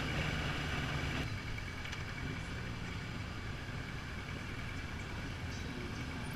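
Motorcycle engine running under way, heard from the rider's own bike with wind and road noise. It quietens about a second in and then runs on steadily.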